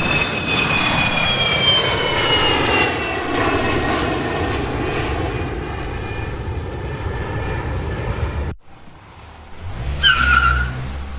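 Jet airliner taking off: engine rush with a high whine that falls slowly in pitch as it goes, cut off suddenly about eight and a half seconds in. A car engine rumble follows, with a short high squeal about ten seconds in as it pulls up.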